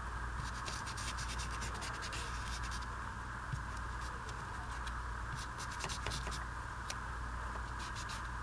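Ink blending tool's pad rubbed over the edges of old book page pieces in repeated short, scratchy strokes, distressing the paper, over a steady background hum.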